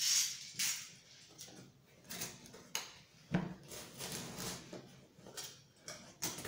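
Cardboard box being handled and opened with gloved hands: irregular scraping and rustling of the cardboard and its packing tape, with a few sharp clicks and one heavier knock about halfway through.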